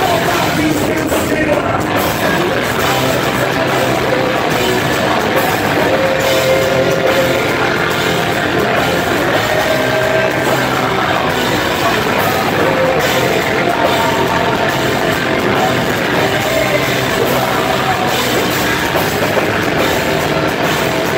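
Heavy metal band playing live at full volume: distorted electric guitars, bass and a drum kit, with a male lead vocal over them.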